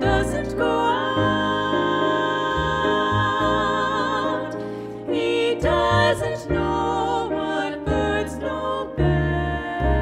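Three women's voices singing in harmony with piano and double bass, holding a long note for several seconds before moving through shorter phrases.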